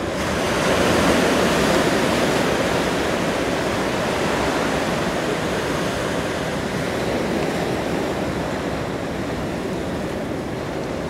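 Steady rushing and hissing of churned water from a passing tugboat's bow wave and wake, swelling about a second in and then holding steady.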